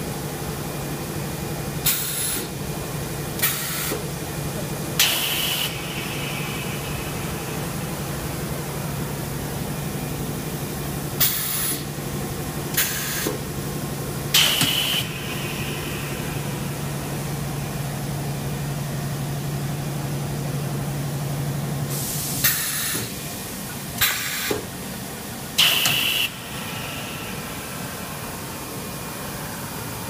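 Pneumatic cutting-off machine on a rubber extrusion line cycling. It gives sharp air blasts in sets of three about every ten seconds, and the third blast of each set is longer and trails off in a hiss. Underneath is a steady machine hum that stops about two-thirds of the way through.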